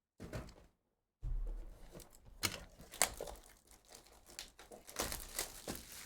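Foil trading-card pack wrapper crinkling and tearing open, with sharp crackles about two and a half seconds in, at three seconds, and in a longer stretch near the end.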